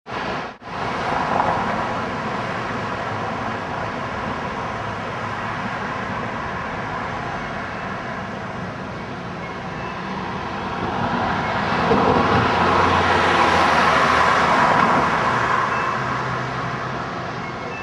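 Road noise from a vehicle driving along a city street: a steady rush of tyres and engine. It cuts out briefly just after the start, then grows louder for a few seconds past the middle before easing off.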